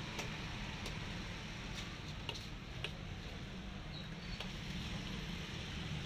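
Steady low rumble of background noise with several faint, short clicks scattered through it.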